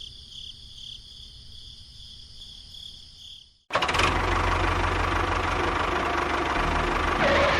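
A faint high-pitched motor whine. About three and a half seconds in it cuts off abruptly and a loud engine starts running, with a rapid low chugging.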